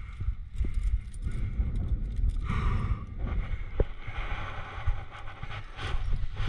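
Wind rumbling on the microphone, with scattered clinks of carabiners and cams on a climbing rack. From about two and a half seconds in, a scraping rush as the camera and the climber's body rub against the sandstone inside the crack.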